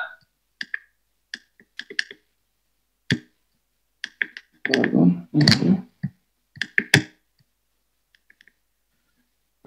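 Irregular clicks and taps of a computer mouse and keyboard, with a few heavier knocks about five to seven seconds in.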